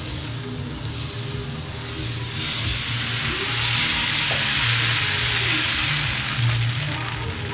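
Ragi (finger millet) dosa batter sizzling on a hot tawa as it is poured and spread in circles with a ladle. The sizzle swells about two and a half seconds in and eases a little near the end.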